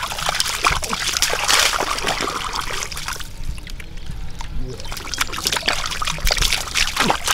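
Shallow muddy water splashing and trickling as hands grope through it, with a quieter stretch about halfway through.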